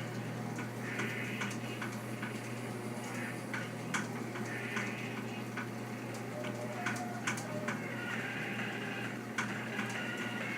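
Steady low hum with light, sharp ticks about twice a second.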